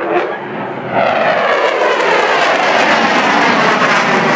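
An F-16 fighter jet's single jet engine, heard as a loud, continuous rush of jet noise as the aircraft passes. The noise swells about a second in and stays loud, with a slow downward sweep in its tone.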